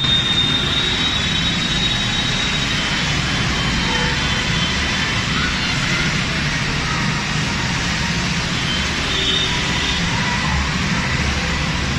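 Steady rushing noise of a wet, flooded street, with faint high calls or voices now and then.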